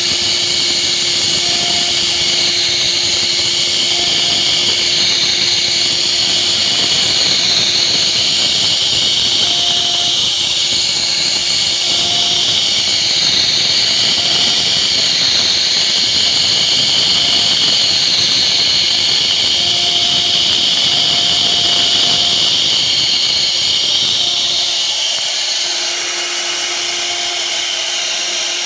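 CNC router spindle cutting wood: a loud, steady high-pitched cutting noise with faint tones that come and go underneath. It eases a little and gets thinner about 25 seconds in.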